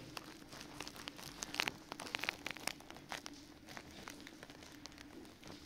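Rustling and crinkling of a blanket being spread and smoothed out on a carpeted floor, with scattered light clicks and knocks, busiest in the first half.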